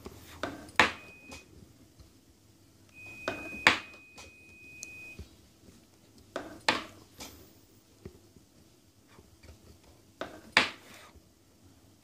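Sharp metallic clinks from tools being handled at a soldering bench, in four pairs of a light tap then a louder clink, about three seconds apart. A faint steady high beep-like tone sounds twice in the first half.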